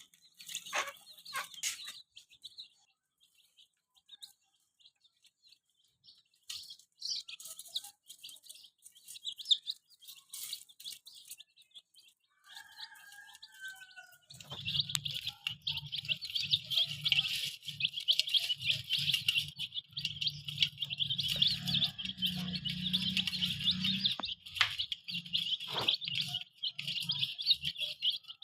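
Baby chicks peeping: scattered high calls at first, then about halfway in a dense, continuous chorus of peeping with a low rumble underneath.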